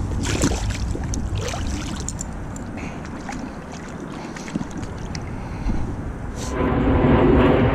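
Low rumbling noise with scattered clicks and rustles. About six and a half seconds in, a louder steady rumble with a faint hum sets in.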